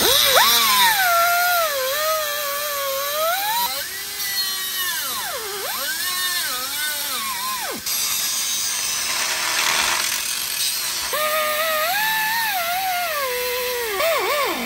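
A high-speed cut-off tool cuts through the steel of the stock motor-mount brackets. It whines, and its pitch sags and recovers as the wheel bites into the metal, over a hissing rush of cutting. The whine drops away for a few seconds in the middle.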